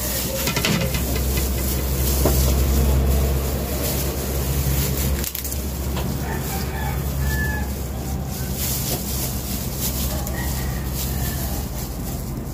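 A rooster crowing twice in the second half, faint behind a steady low hum and hiss.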